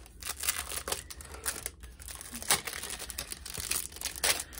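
Packaging crinkling and tearing as an eyeshadow palette is unwrapped: a run of irregular crackles, with two louder ones about halfway through and near the end.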